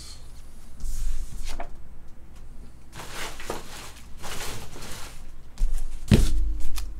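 Cardboard packaging being handled: several short rustles and scrapes, then a sharp knock about six seconds in as a cardboard box is picked up and moved.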